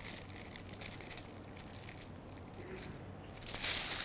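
A spatula scraping and tapping sticky coconut macaroon batter into a plastic piping bag standing in a glass. About three and a half seconds in, louder crinkling starts as the plastic piping bag is handled.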